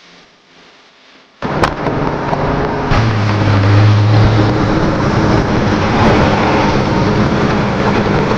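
Pressure washer running and spraying: a loud, steady hiss of the water jet with a low motor hum underneath. It cuts in suddenly about a second and a half in.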